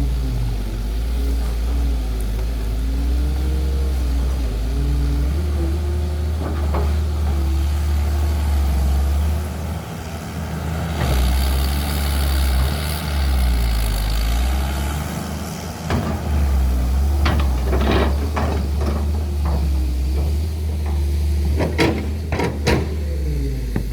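Excavator's diesel engine running, its note rising and falling as the hydraulics are worked. There is a hiss about halfway through, and several sharp clanks near the end.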